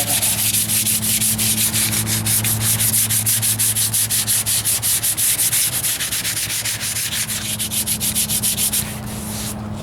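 Hand sanding with sandpaper on filler primer over body filler on a truck's wheel arch: quick, even back-and-forth scratching strokes, about five a second, that stop near the end. A steady low hum runs underneath.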